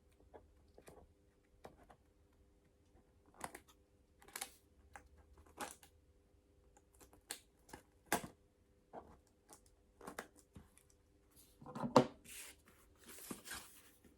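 Cardboard packaging being opened and handled by hand: scattered rustles, small tearing sounds and sharp clicks and taps, coming more thickly near the end.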